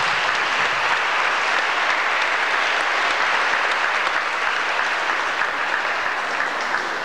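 Audience applauding: many people clapping steadily together, easing off slightly near the end.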